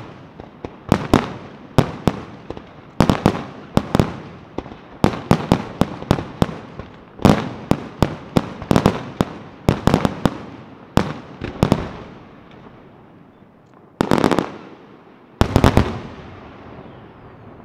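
Aerial fireworks shells bursting in a rapid series of loud bangs, each followed by a short echo. Near the end come two tight volleys of bangs, after which the echo fades out.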